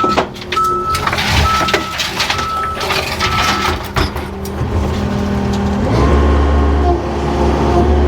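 John Deere skid steer reversing, its backup alarm beeping about once a second over the running diesel engine, with scattered knocks of debris. The beeping stops a little past halfway and the engine then runs louder and deeper, as it does under load.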